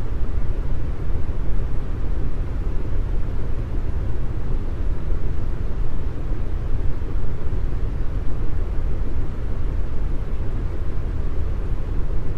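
Deep brown noise: a steady, even noise with its weight in the bass, thinning out toward the treble, with no tones and no changes.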